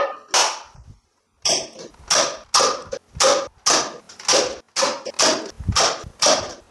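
Toy foam-dart blaster firing in quick succession, about a dozen sharp shots at roughly three a second after a short pause, as darts knock over a stack of paper cups.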